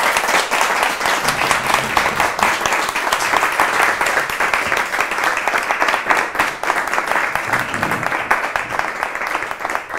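Audience applauding: many hands clapping steadily, thinning a little near the end.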